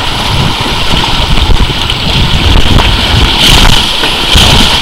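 Rushing water and wind buffeting the microphone as an inflatable tube slides down a water slide, with a loud low rumble and a couple of louder splashing swishes near the end.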